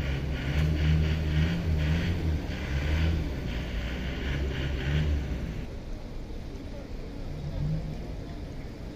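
Rain falling on a flooded street, under a loud, uneven low rumble that dies away about five seconds in, leaving the softer hiss of the rain.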